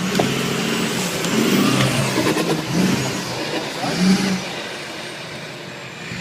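Off-road 4x4's engine running under throttle, revving up and down, with a few knocks about two seconds in.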